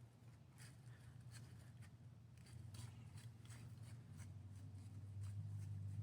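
A buck pawing and scraping at the ground, making a scrape: faint, irregular scratches and rustles of leaves and dirt, a few a second, over a low hum that grows louder near the end.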